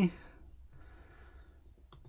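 Low room tone in a pause of speech, with a faint breath early on and one soft click near the end.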